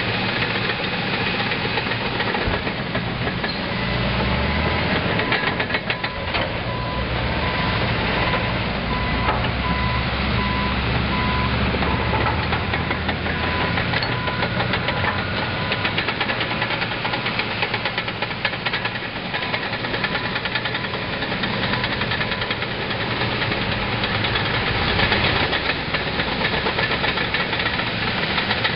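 Bulldozer diesel engine sound running steadily, its low pitch shifting up and down, with rattling clicks throughout. A beeping like a reversing alarm repeats for several seconds in the middle.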